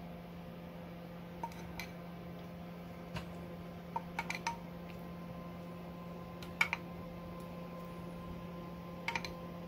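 A metal spoon clinking now and then against a dish while tomato sauce is spooned over a tray of layered vegetables: light scattered clinks, a quick run of them about four seconds in and the loudest about six and a half seconds in. A steady low hum runs underneath.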